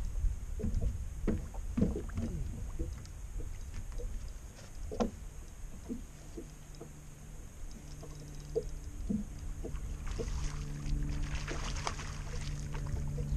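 A hooked largemouth bass thrashing and splashing at the water's surface beside a boat as it is played and netted, the splashing heaviest near the end. A steady low hum comes in about eight seconds in.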